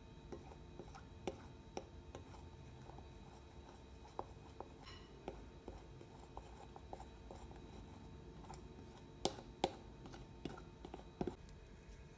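Metal fork clicking and scraping against a glass mixing bowl while stirring crumbly cookie dough: faint scattered taps, with two sharper clinks in quick succession about nine seconds in.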